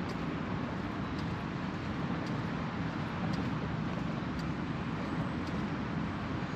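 Steady low rumble of urban traffic, with faint light ticks about once a second.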